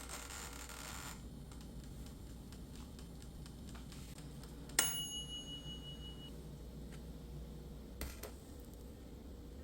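A short hiss at the start, then a single sharp metallic ding about five seconds in that rings on for about a second and a half, and a softer click near the end.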